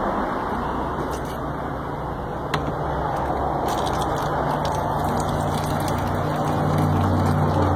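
Water running steadily from a tap, with a low hum under it that grows stronger in the second half.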